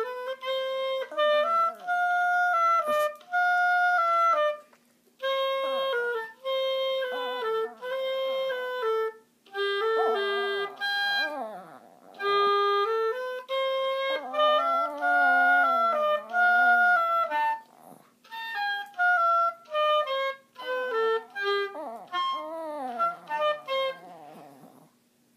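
An oboe playing a melody of held, stepped notes while a dog howls along with it in sliding, wavering pitches, joining in several times.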